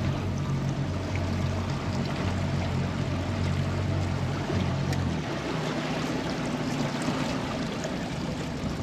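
Boat outboard motor running at low speed with its leg trimmed up, over a steady rush of water along the hull. About five seconds in, the engine note changes and its deep low tone drops away, leaving a lighter hum.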